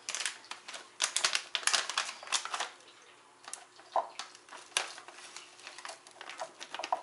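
Plastic pouch of brown sugar and stevia blend crinkling as it is handled and opened: a quick flurry of crackles for the first three seconds, then sparser rustles as it is tipped toward a measuring cup.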